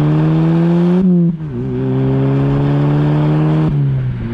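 Exhaust note of a VW MK5 GTI's turbocharged 2.0-litre four-cylinder through an ECS Tuning 3-inch cat-back exhaust, recorded at the tailpipes while driving. The note climbs under acceleration, drops sharply about a second in as the car upshifts, climbs again, then falls back and holds steady near the end.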